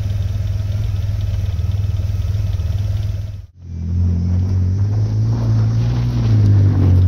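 Vauxhall Cavalier's 3.0 V6 engine (X30XE) running through its exhaust. It starts as a steady drone, then after a sudden cut about three and a half seconds in comes back louder, with the revs wavering slightly and rising toward the end.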